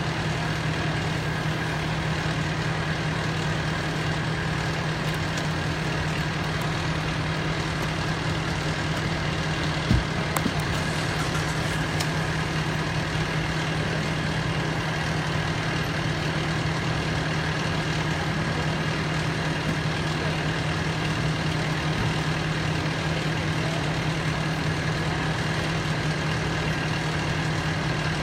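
Fire engine idling steadily with a low, even hum. A single short knock sounds about ten seconds in.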